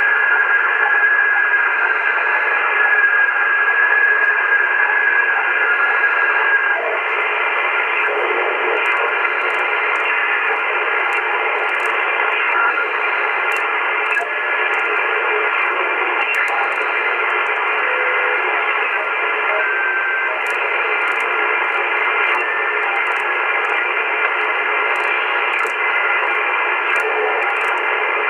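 AOR AR8600 communications receiver in upper sideband mode being tuned slowly up through the 2–4 MHz shortwave band: steady band static through the narrow sideband filter, with a steady whistling carrier tone that fades out about seven seconds in.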